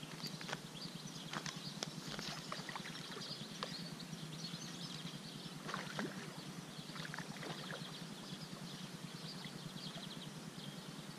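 Small splashes and sloshing of water as a hooked trout is played at the surface and drawn into a landing net.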